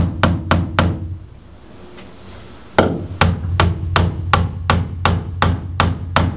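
Claw hammer driving short nails through a steel Simpson Strong-Tie H2.5 hurricane clip into a wooden truss: a quick run of strikes, about four a second, then a pause of about two seconds, then a longer run at the same pace, with a faint high metallic ring.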